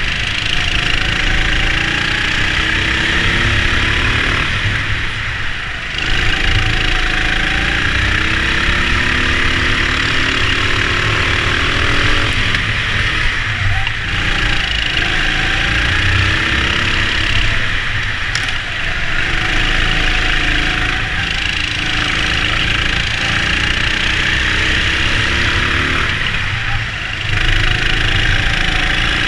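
Indoor rental go-kart engines at racing speed, the pitch climbing on each straight and dropping back as the kart lifts off for the corners, with a steady rushing noise underneath.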